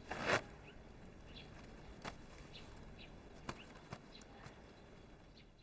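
Quiet pause in the scene's background sound. A brief rustle comes just after the start, then a few soft taps and faint short high chirps.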